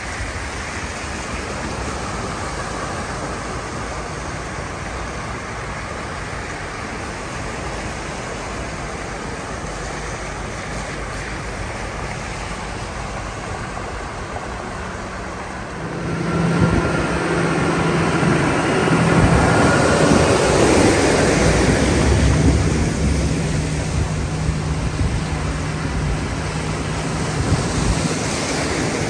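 Cars driving through floodwater on a road, tyres swishing through the water. About halfway in, the sound grows louder, with an engine hum and heavy splashing as vehicles plough through deeper water close by and throw up spray.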